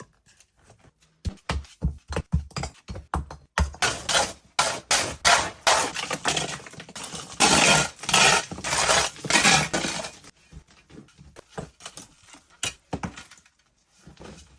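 Hand work on ABS drain pipe: a fast, irregular run of knocks, clatters and short scraping strokes as the pipe and fittings are cut and fitted. It is busiest in the middle and thins out near the end.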